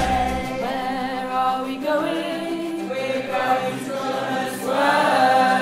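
A group of teenage school pupils singing a song together.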